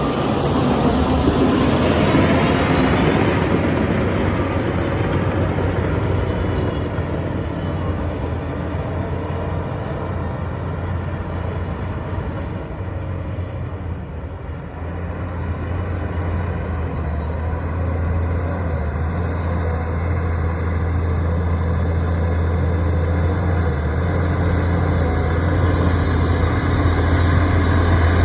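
Shantui bulldozer's diesel engine running with a steady low drone. It eases off about halfway through and builds up again toward the end.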